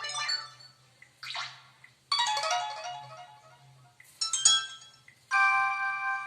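Preloaded electronic alert tones from a Sony Xperia 10 phone's speaker, a series of short chimes with gaps between them: a descending run of notes about two seconds in, a bright chime about four seconds in, and a held chord near the end.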